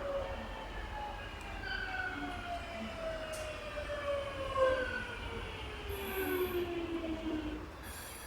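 Electric commuter train pulling into the station, its motor whine falling steadily in pitch as it slows under braking, over a low running rumble, with short hisses near the end.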